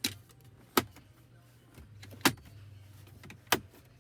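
Plastic clips of an Audi MMI touchpad trim panel snapping into place as the panel is pressed down: four sharp clicks about a second apart.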